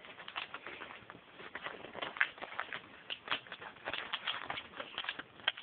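Sheet of paper rustling and crackling as it is folded by hand, in a run of irregular small crackles.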